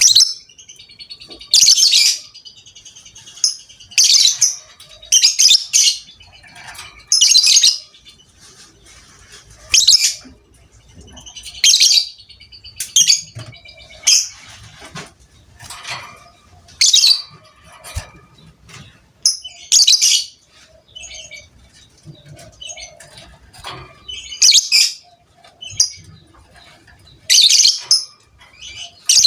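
Lovebird calling in short, shrill, high-pitched chattering bursts, about a dozen of them, one every two to three seconds, with fainter chirps between.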